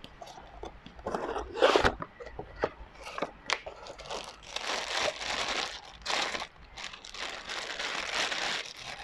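Clear plastic bag crinkling and rustling as an airsoft pistol is unwrapped from it, with a few sharp clicks from handling the gun and its box.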